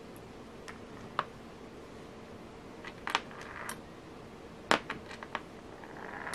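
Small sharp clicks and ticks of porcelain beads and metal bead caps knocking together while being threaded onto a beading needle. There are about five separate clicks, the loudest a little before five seconds in, over a faint steady hum.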